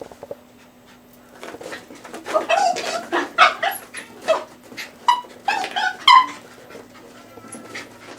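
Pet dog barking and yipping in a quick, excited series while chasing a laser pointer dot. The calls start about a second and a half in and stop around six seconds.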